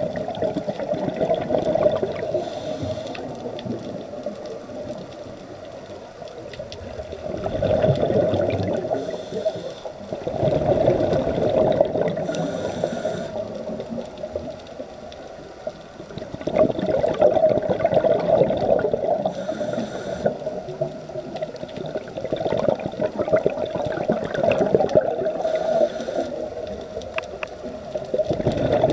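Scuba diver breathing through a regulator underwater: bubbly rushes of exhaled air come back every several seconds, with short high hisses between them.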